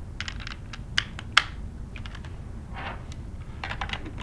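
Scattered light clicks and taps of tools being handled: a socket and cordless impact gun being set onto the bolts of a plastic pump manifold. A small cluster of quick clicks comes near the end.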